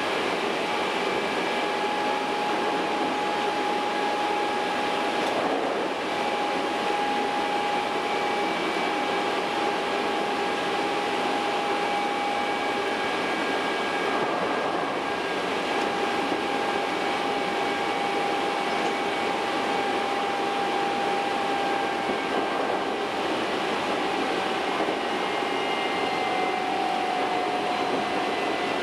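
Hankyu Kyo-train electric train running, heard from on board at the front: a steady running noise with a thin whine that drops slightly in pitch near the end.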